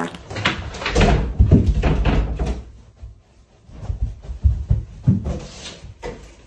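Loud thumps and bangs of people running and scuffling about a room. A dense run of knocks and heavy thuds comes first, then a short lull, then another cluster of knocks about four to five seconds in.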